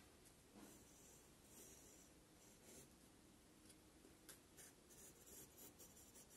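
Near silence, with the faint scratch of a compass's pencil point tracing a circle on paper and a few light touches in the second half.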